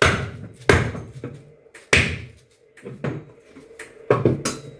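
Powder-coated aluminium frame pieces knocking and clattering as they are handled and fitted together: a series of sharp knocks, roughly one a second, each with a short ring.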